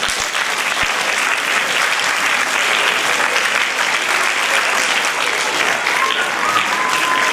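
Audience applauding: a dense, steady clapping from a large crowd.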